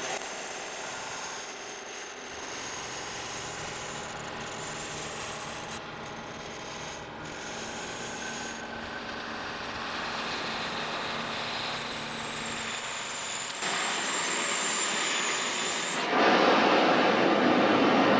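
Gas cutting torch flame hissing steadily during a preheat pass over thick steel, with a faint high whine. The hiss grows louder in two steps, about thirteen seconds in and again near the end.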